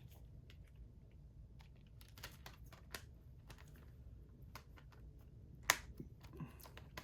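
Faint scattered clicks and taps of a plastic Blu-ray case and its discs being handled, with one sharper click about two-thirds of the way through.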